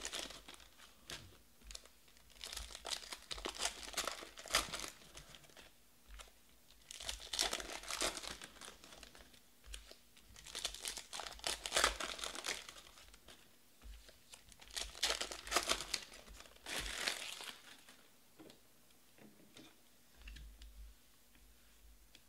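Plastic wrapper of a Panini Prizm Draft football card pack being torn open and crinkled by hand, in about six bursts of crackling with short pauses, dying down over the last few seconds.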